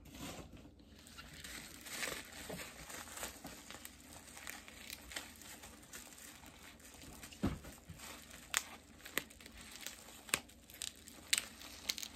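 Plastic bubble wrap being handled and unwrapped by hand, crinkling and crackling in irregular bursts, with sharper crackles from about halfway through.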